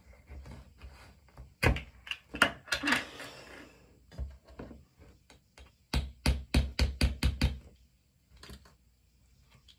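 Hard plastic clicks and knocks from a vitamin bottle and its child-resistant cap being gripped and twisted, including a quick run of about eight clicks near the end.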